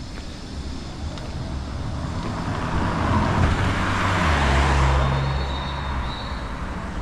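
A motor vehicle passing close by on a street: its engine rumble and tyre noise swell to a peak about four to five seconds in, then fade away.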